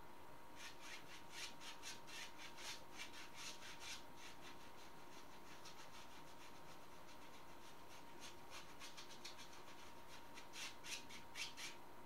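A bristle brush loaded with acrylic paint scrubbing across a stretched canvas in short rasping strokes, about four a second. The strokes come in two runs: one in the first four seconds, the other from about eight seconds in until just before the end. A faint steady high whine sits underneath.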